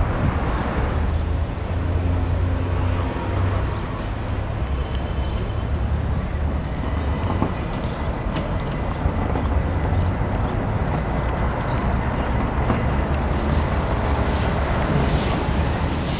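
Street traffic noise: a steady, heavy low engine rumble from vehicles, with a few short hissing sounds near the end.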